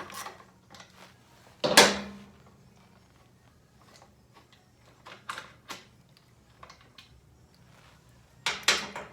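Metal parts and tools handled on a workbench: a loud metallic clatter about two seconds in, a few light clicks in the middle, and another short clatter near the end.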